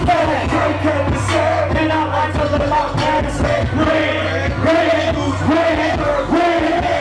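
Live hip hop performance: rappers' vocals over a beat with a heavy, steady bass line, played loud through a club PA.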